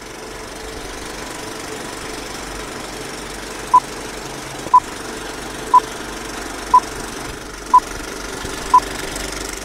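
Old film countdown leader sound effect: a steady projector-like running noise, with a short high beep once a second marking each number, six beeps starting about four seconds in.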